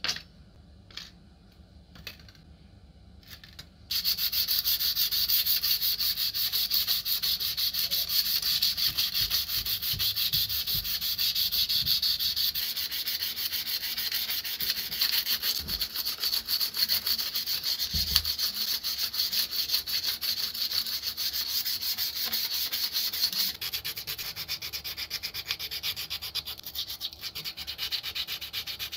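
Sandpaper rubbed by hand in rapid back-and-forth strokes over the metal parts of a Buntline Super gun, a steady scratchy hiss that starts about four seconds in and gets a little softer near the end. A few light clicks come before it.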